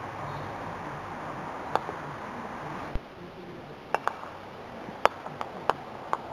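Croquet mallet and balls: a string of sharp wooden clicks of mallet on ball and ball on ball, spaced irregularly, the loudest about five seconds in, over a steady background hiss. A dull thump comes about three seconds in.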